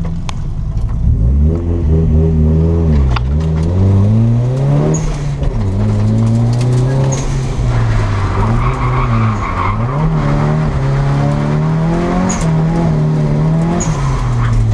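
Nissan S13's turbocharged CA18DET four-cylinder engine revving hard, heard from inside the cabin, its pitch climbing and dropping again and again as the car is driven through a drift course. From about halfway through, tyre squeal and skidding noise join in under the engine.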